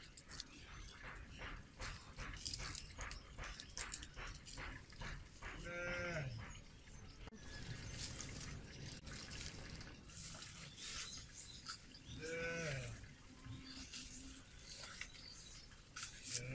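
Dry twigs and sticks snapping and crackling as a small wood fire is fed, a quick run of clicks at first, then scattered. An animal bleats twice, each call a short falling cry, about six seconds apart.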